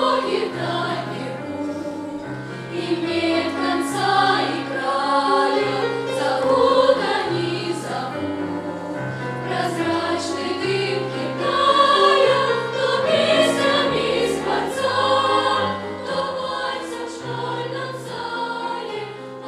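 Children's choir singing in unison and harmony, with low sustained accompaniment notes from an electric keyboard shifting beneath the voices.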